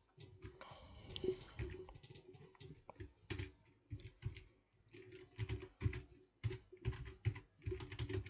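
Typing on a computer keyboard: irregular runs of quick key clicks, with a sparser stretch a little before halfway.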